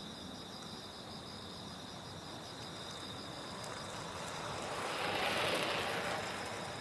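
Night insects trill steadily in the background. A passing vehicle rises as a rushing noise from about halfway through, peaks near the end and then fades away.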